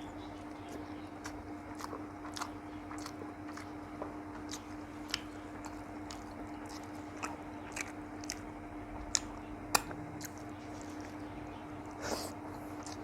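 Chewing and wet mouth clicks of a person eating rice with egg curry, scattered smacks throughout and two sharper clicks a little past the middle, over a steady low hum.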